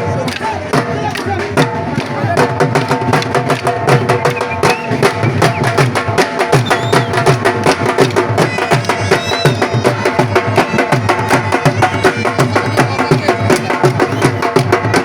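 Drums beating a fast, steady rhythm under a held, droning wind-instrument melody, with crowd voices in the background.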